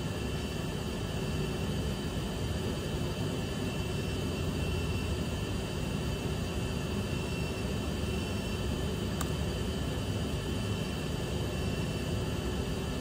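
Steady background noise of running machinery: an even hiss and low hum with a faint high whine. One faint click about nine seconds in.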